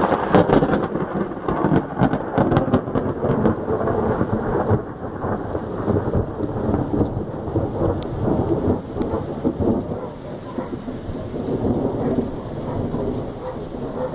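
A long, loud roll of thunder. It starts with a sharp, crackling onset, then rumbles on unevenly for more than ten seconds with several swells.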